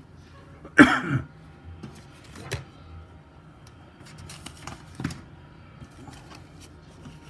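Handling noises: a loud knock about a second in, then a few softer clicks and some rustling over a low steady hum.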